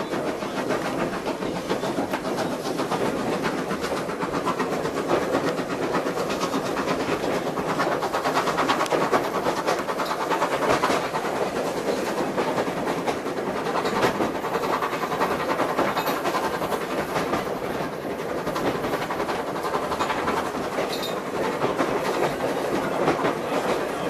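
A steam-hauled heritage train running along the line, heard from inside the coach: a steady clatter of wheels on the rails.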